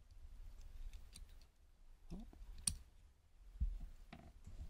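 Light clicks and taps from a Master Lock deadbolt cylinder being taken apart by hand as its pin stacks are dumped out one at a time. A sharper click comes a little past the middle, with a dull knock soon after.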